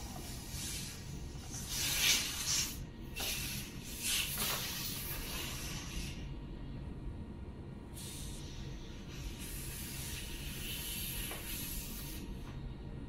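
Air hissing out of the neck of a green crystal latex balloon as it is let partly down. The hiss comes in several loud spurts in the first five seconds, then goes on more softly.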